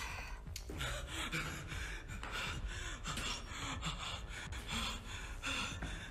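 A person breathing hard in quick, gasping breaths, about two a second, with faint music underneath.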